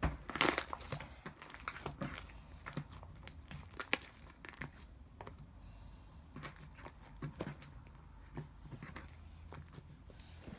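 Slime being squeezed and stretched by hand, giving off scattered crackling clicks and pops. A dense flurry comes in the first second and a sharper pop about four seconds in.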